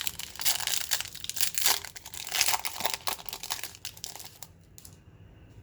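A trading card pack's wrapper crinkling and tearing open, a dense run of crackles for about four seconds that then dies away.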